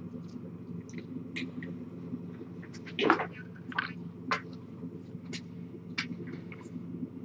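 Kittens moving about close to the microphone: scattered light clicks and taps over a steady low hum, with one louder, brief sound about three seconds in.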